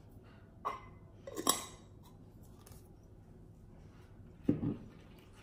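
Light clinks of a metal spoon against small glass jars, two sharp ones about a second and a half in, then a dull knock as a glass jar with a metal lid is set down on a wooden table near the end.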